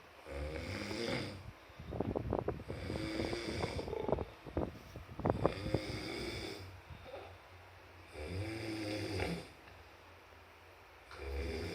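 A person snoring heavily: long rasping snores every few seconds with short quiet gaps between them, the ones near the middle rough and rattling.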